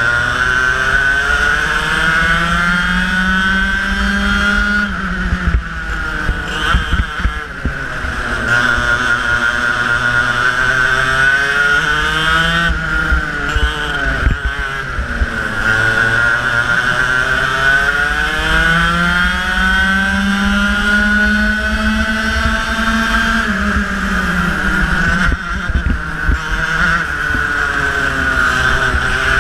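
Racing kart engine heard onboard at race pace. Its pitch climbs for several seconds at a time and drops sharply three times as the kart slows for corners.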